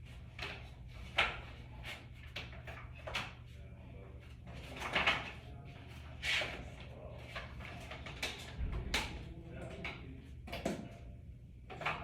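Irregular clicks and knocks of plastic Connectrac raceway pieces being handled and snapped together, with a few louder clacks.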